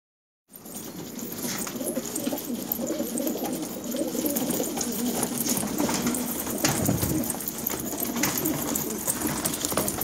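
Several domestic pigeons cooing continuously, starting about half a second in.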